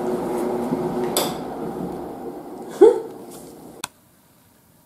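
Electric toothbrush buzzing with a steady hum that fades over the first few seconds. A short loud sound comes near three seconds in, and a sharp click just before it goes quiet.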